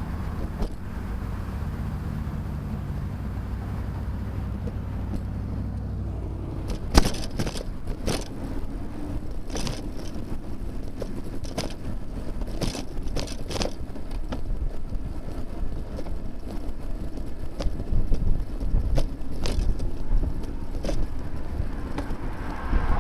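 Road traffic heard from a moving bicycle: a motor vehicle's engine hum during the first six seconds, then a series of sharp knocks and rattles at irregular intervals over steady road noise.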